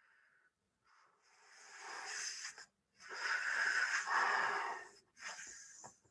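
A person blowing hard into a disposable rubber glove, inflating it like a balloon, in three breathy blows: the first builds up, the middle one is the longest and loudest, the last is short.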